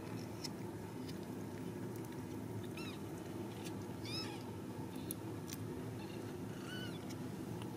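Newborn Ragdoll kittens giving three short, high-pitched mews, each rising and falling in pitch, about three, four and seven seconds in, over a steady low rumble with a few faint ticks.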